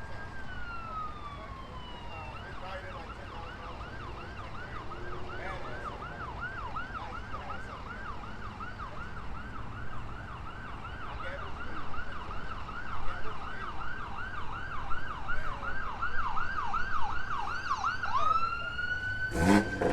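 Electronic siren: a wail falling in pitch, then a fast yelp sweeping up and down about three times a second for around sixteen seconds, then rising back into a wail near the end.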